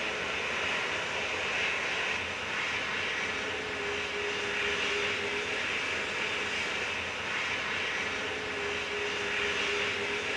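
Airliner engines running: a steady rushing noise, with a faint steady whine that comes and goes twice.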